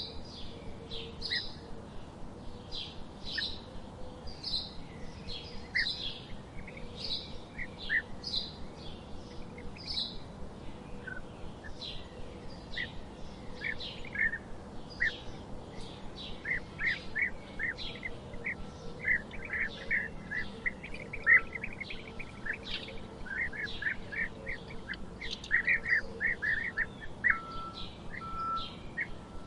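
Several songbirds chirping in a forest. A short high chirp repeats about every half second through the first half, then busier, lower chirping from several birds takes over from about halfway.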